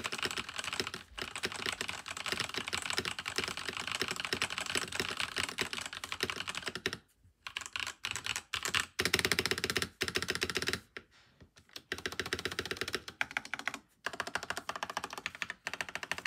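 Typing on a Langtu LT84 mechanical keyboard fitted with its linear switches. Fast, continuous keystrokes break off briefly about 7 seconds in and again about 11 seconds in, then turn to slower, separate key presses near the end.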